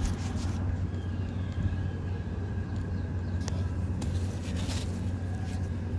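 A steady low hum with a faint high tone over it, and a few light taps and gritty scrapes from a hand handling crumbly sand blocks, about three and a half to five seconds in.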